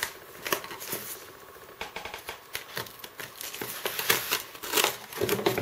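Hands handling styrofoam model packaging: irregular light scrapes, taps and rustles as a foam piece and a printed booklet in a plastic sleeve are worked loose from the box.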